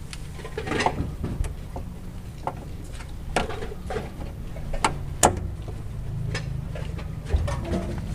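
Irregular metallic clicks and clinks of a hand tool working on the fuel-line fittings under a car, over a steady low hum.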